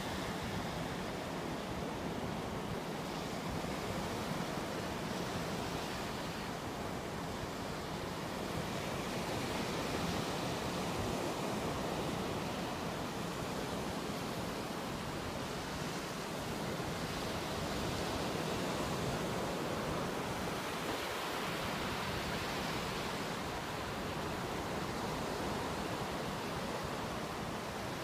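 Ocean surf washing onto a sandy beach: a steady rush of waves, swelling and easing every few seconds.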